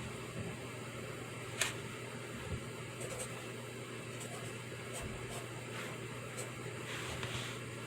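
Pencil writing on paper: scattered light scratches and small taps, with a sharper tick about a second and a half in and a longer stretch of scratching near the end, over a steady hiss and low hum.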